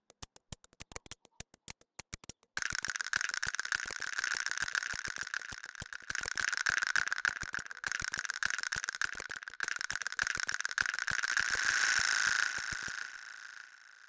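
Electronic intro texture from a live-looping keyboard and sampler rig. A quick, even train of clicks, about five or six a second, gives way about two and a half seconds in to a rattling, crackly noise with a steady high tone, which fades out near the end.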